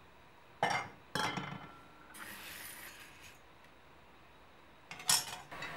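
Metal spatula clinking against a steel plate as roasted whole urad dal is tipped out of the pan and spread to cool. Two clinks about half a second apart, one leaving a short ringing tone, a faint rustle of the grains, then another clink near the end.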